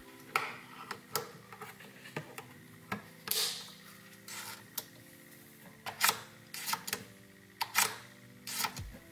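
IKEA UTRUSTA push opener being handled and fitted to the cabinet frame: a series of irregular sharp plastic clicks and knocks, the loudest in the second half.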